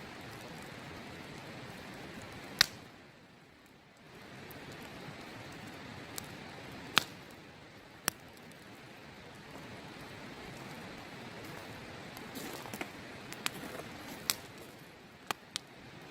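Wood campfire crackling, with about ten sharp pops and snaps scattered unevenly through, the loudest two near the start and around the middle, over the steady rush of a river.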